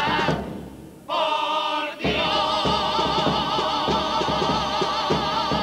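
Male comparsa choir singing in several voice parts over strummed Spanish guitars. After a brief dip about half a second in, the voices come back, and from about two seconds in they hold a long chord with vibrato.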